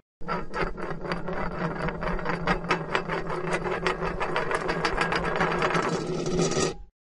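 A rapid mechanical clatter, a run of sharp clicks about six a second over a low steady hum, used as an intro sound effect. It cuts off suddenly near the end.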